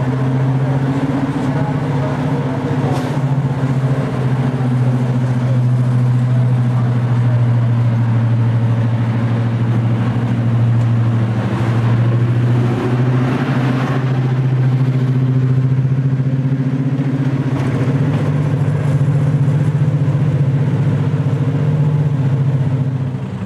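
Class 55 Deltic diesel locomotive's twin Napier Deltic two-stroke engines running with a loud, steady drone. The pitch steps up slightly about eighteen seconds in.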